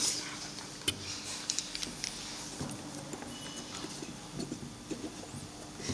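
Sharp clicks and small knocks of brass plugs being worked out of and pushed back into a plug-type resistance box, several at irregular intervals. A faint steady hum lies underneath.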